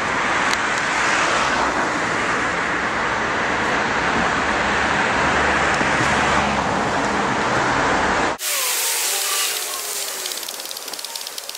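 Steady road traffic noise, a continuous hiss of passing cars. About eight seconds in it cuts off abruptly, giving way to a quieter background with faint gliding tones and a fast, light ticking.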